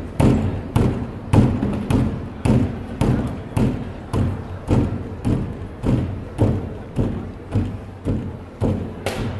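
Plastic wheelie bins struck by hand as drums, a steady beat of about two deep thuds a second with lighter hits in between.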